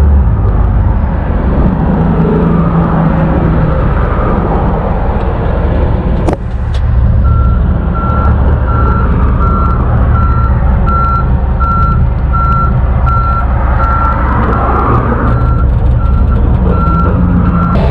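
Tow truck engine running, with a sharp knock about six seconds in. About a second later its backup alarm starts beeping steadily, roughly one and a half beeps a second, as the truck reverses.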